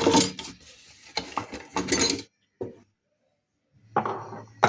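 Metal parts of a washing-machine basket-removal tool clinking and knocking together as it is assembled by hand, with a pause of about a second before a last bout of handling noise near the end.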